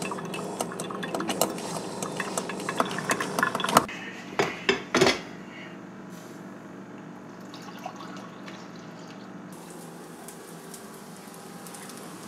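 A utensil clinking rapidly against a dish or bowl, as in stirring or whisking, for about four seconds. A few louder knocks follow, then only a low, steady background.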